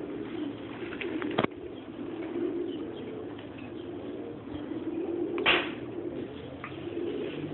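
A flock of domestic pigeons cooing steadily, with a sharp click about one and a half seconds in and a brief louder noisy burst past the middle.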